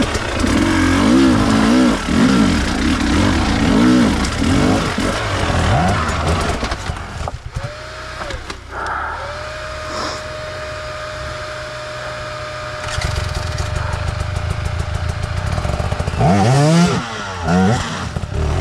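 Enduro dirt bike engine revving up and down under throttle, settling to lower, steadier running about seven seconds in, then revving hard again near the end.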